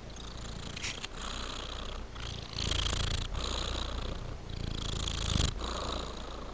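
Tabby-and-white domestic cat purring while lying relaxed. The purr is steady, with short breaks between breaths about every one to two seconds.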